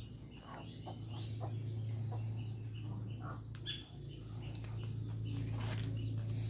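Chickens clucking, with scattered short calls over a steady low hum.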